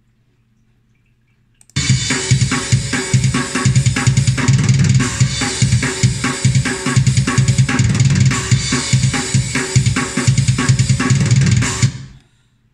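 Sampled drum kit from the Ugritone KVLT Drums II plugin, 'Mexico 1998' kit preset, playing a fast metal groove at 145 BPM: kick, an extremely snappy snare and cymbals. It starts about two seconds in and cuts off abruptly near the end.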